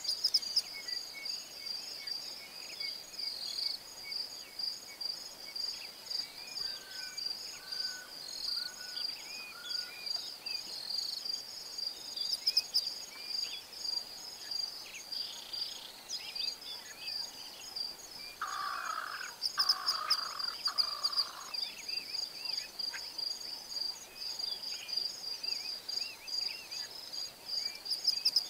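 Bushveld ambience: insects trill steadily in a high, fast-pulsing chorus, with scattered faint bird chirps. About two-thirds of the way through, an animal gives three short, loud calls in quick succession.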